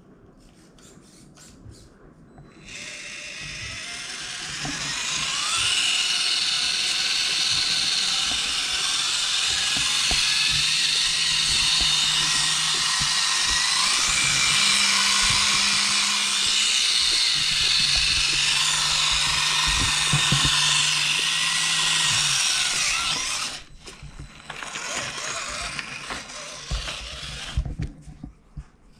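Redcat Ascent-18 1/18-scale RC crawler's small electric motor and drivetrain whining as it drives, the pitch rising and falling with the throttle. It drops out about three-quarters of the way in, leaving quieter rustling and knocks as the truck crawls over fabric.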